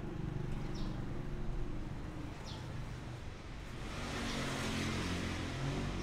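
Street traffic: a steady low engine rumble, with a vehicle passing about four seconds in as a swelling rush of engine and tyre noise.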